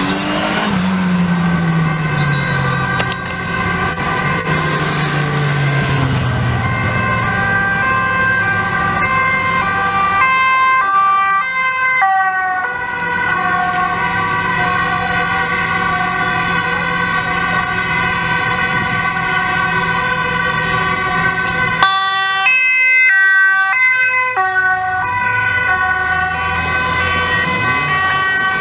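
Sirens of several Dutch police and fire vehicles sounding over each other as an emergency convoy drives by on an urgent run, with the vehicles' engines passing. The overlapping tones switch twice to a fast rapid alternation lasting a couple of seconds.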